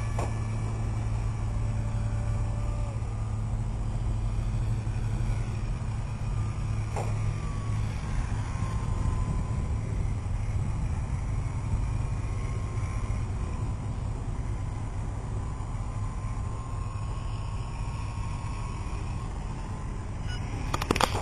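Steady low rumble with the faint whine of a Multiplex EasyStar's brushless 400F electric motor, wavering slowly in pitch as the plane flies. A few sharp clicks near the end.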